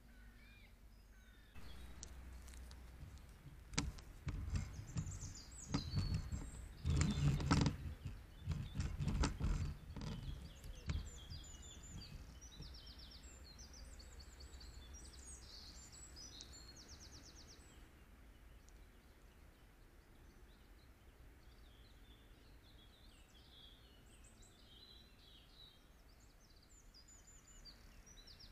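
Small songbirds singing high, rapid trills and chirps, repeated on and off throughout. Beneath them, loud rustling and crackling noise starts about two seconds in, is heaviest around the middle, and dies away before halfway.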